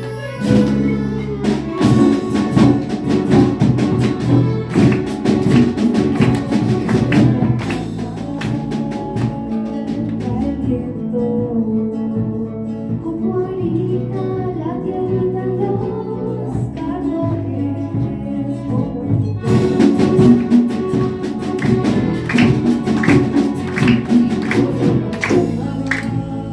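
Orchestra playing a lively piece, pitched melodic lines over sharp percussion strikes. About ten seconds in, the percussion drops out for a softer melodic passage, and it comes back about twenty seconds in.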